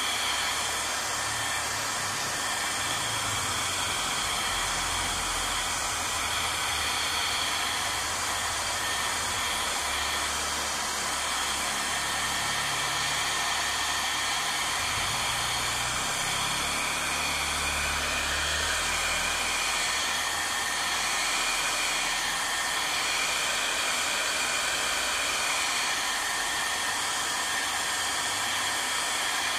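Hair dryer blowing steadily: an even rush of air with a faint steady whine from its motor.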